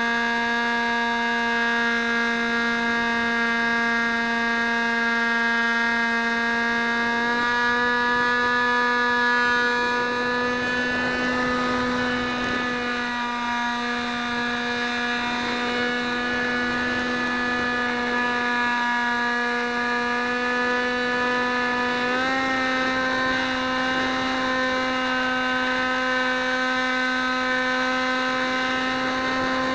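Model aircraft's motor and propeller heard from the onboard camera, a steady high drone whose pitch steps up slightly about seven seconds in and again about twenty-two seconds in as the throttle changes.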